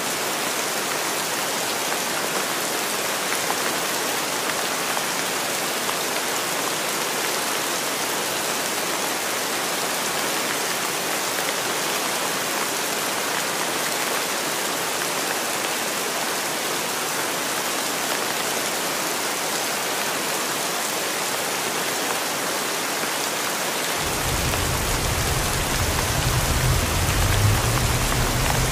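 Steady hiss of heavy rain pouring onto pavement and parked cars. About 24 seconds in it changes to the inside of a car driving in the rain, with a low road rumble under the rain.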